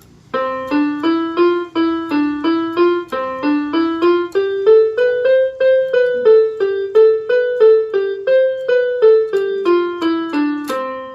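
Electronic keyboard with a piano sound, played one note at a time at an even pace of about two and a half notes a second. It is a beginner's lesson exercise whose tune climbs about an octave and steps back down.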